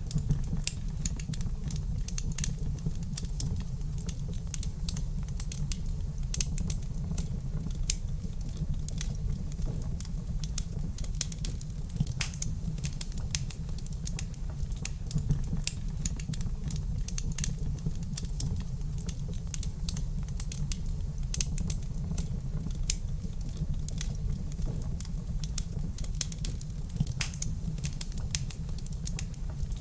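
Wood fire crackling in a fireplace: a dense, irregular run of sharp pops and snaps over a steady low rumble of the flames.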